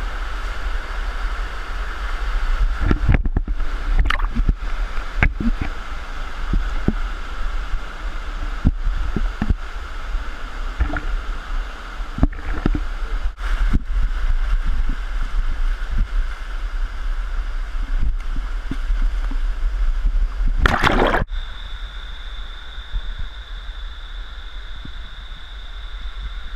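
Water of a cascading waterfall rushing and gurgling over rock right beside the microphone, with a deep rumble and many short knocks and splashes. A loud rush of water comes about twenty seconds in, after which the sound turns to a steadier hiss with a thin high whine.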